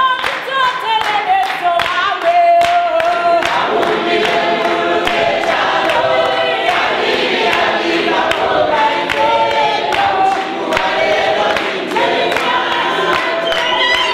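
A congregation singing a worship song together, with steady hand-clapping in time.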